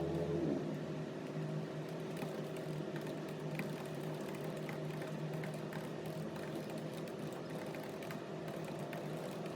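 A steady machine hum with several held tones, and a few faint ticks scattered through it.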